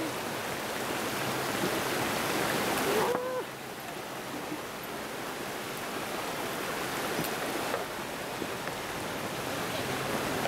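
Steady rushing noise of a stream flowing beneath a wooden footbridge, dropping in level about three seconds in.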